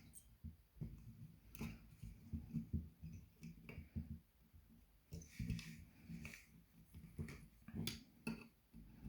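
Irregular small clicks and light knocks from hands working on a graphics card and its fan hardware, with dull low thuds beneath.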